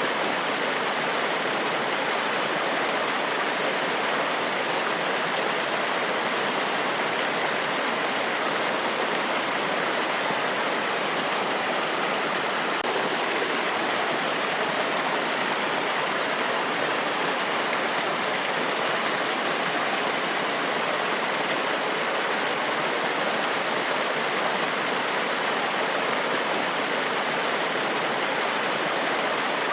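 Forest waterfall: water cascading over rocks in a steady, even rush with no breaks.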